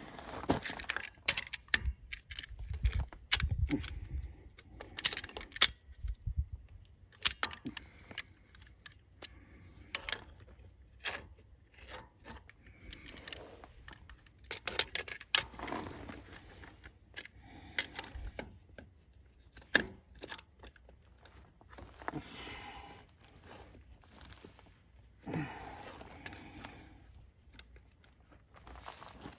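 New 5/8-inch steel wire-rope winch cable being worked by hand around a John Deere 3325 winch drum, with irregular metallic clinks, rattles and scrapes as the stiff cable knocks against the steel.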